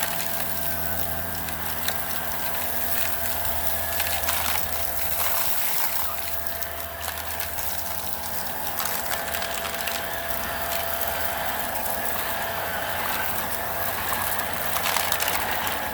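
Hoover Air vacuum cleaner running with a steady motor whine and airflow rush while making a pass over a test mess, with scattered clicks and rattles of debris being sucked up.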